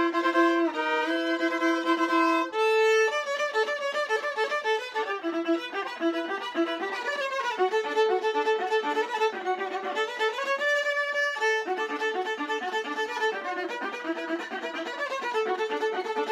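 Solo viola, bowed, playing a fiddle tune: a few long held notes open it, then quick running notes from about three seconds in.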